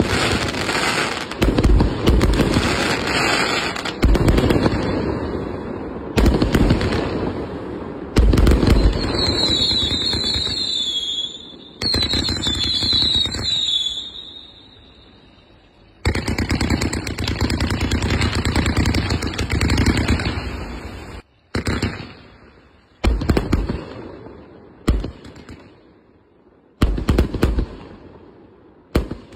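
A 1.2-inch, 258-shot fireworks cake firing in rapid volleys of shots and bursts, with high whistles about ten seconds in. It thins to single shots a couple of seconds apart near the end.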